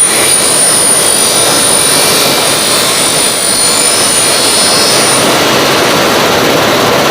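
Sunflower seed hulling machine running: a loud, steady mechanical rush, with a thin high whine that fades out about five or six seconds in.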